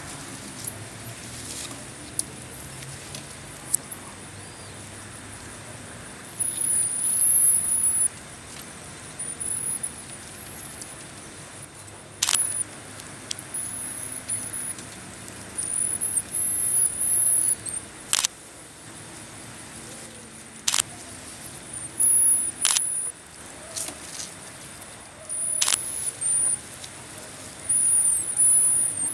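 Marmosets giving bouts of rapid, very high-pitched chirping calls, with several sharp clicks in between.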